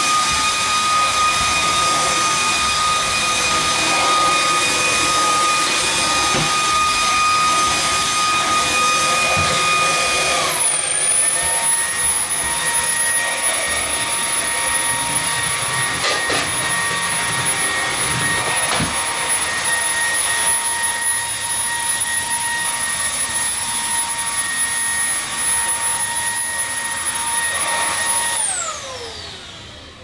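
Stick vacuum cleaner running with a steady high whine over a rush of airflow. About ten seconds in, its pitch drops a step and holds; near the end the motor winds down, its whine falling in pitch as it is switched off.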